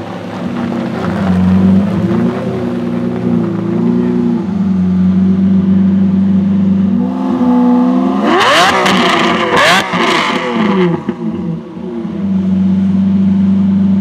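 Lamborghini Murciélago 40th Anniversary's V12 idling, then revved hard twice past the middle, the pitch shooting up and falling back each time, before it settles into a steady idle.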